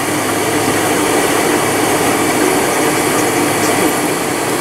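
Steady cabin drone of a Boeing 747-400 taxiing with its jet engines at idle, heard from inside the passenger cabin, with a constant low hum under an even rushing noise.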